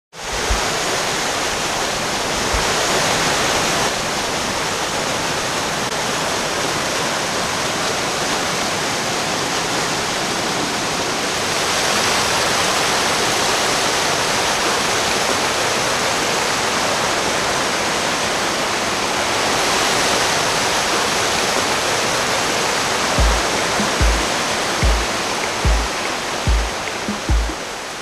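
Rushing whitewater pouring and splashing over boulders, a loud steady roar of falling water. Near the end a deep, regular music beat comes in, a little under one thump a second, as the water fades.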